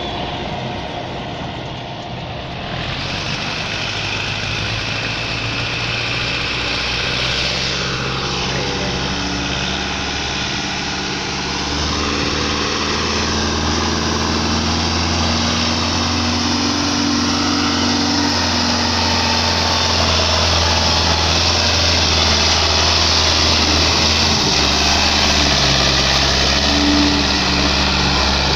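Diesel tractor engines running steadily under load as tractors pull heavily laden sugarcane trolleys past. The low engine note grows stronger about twelve seconds in and shifts again near the end.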